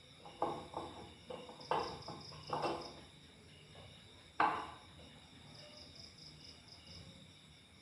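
Crickets chirping steadily, with several short knocks and clatters in the first five seconds, the loudest about four and a half seconds in.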